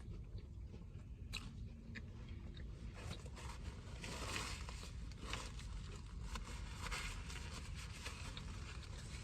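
A person chewing and biting food close to the microphone: many short, wet mouth clicks, a little louder around four seconds in.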